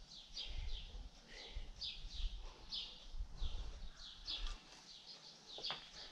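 A small bird chirping over and over, short falling chirps about two a second, with a low rumble beneath and a light click near the end.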